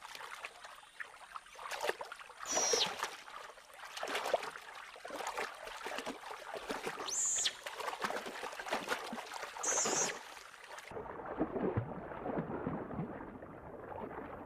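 Giant otters splashing and paddling in shallow river water, with three short high-pitched squeaks. About eleven seconds in, the sound turns muffled and dull, like water heard from below the surface, with bubbling.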